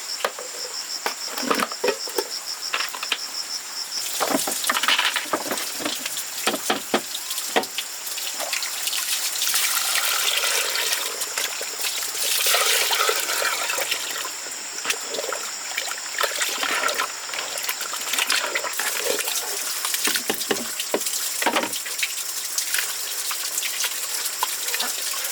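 Water splashing and trickling, with scattered sharp knocks and clicks. A cricket chirps in rapid pulses for about the first four seconds.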